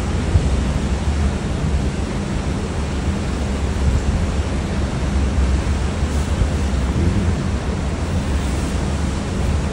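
Steady wind rushing over the phone's microphone, a constant low rumble, with the wash of open sea beneath it.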